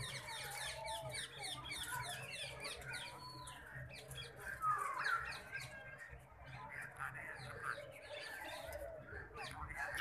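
Aviary birds chirping and calling: many short chirps and whistled notes overlap without a break, with one louder call near the middle.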